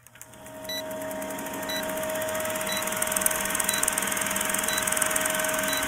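Vintage film-countdown sound effect: a steady film-projector whir and hiss, with a short high beep once a second, six in all. It fades in at the start.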